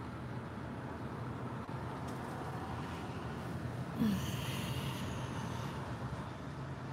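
Steady low hum heard inside a stationary vehicle's cabin, with one brief short noise about four seconds in.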